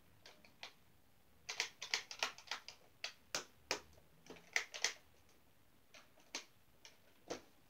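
Irregular sharp plastic clicks and rattles from a toy Nerf blaster being handled and worked to clear a jam. The clicks come thickest in the middle and thin to a few single clicks near the end.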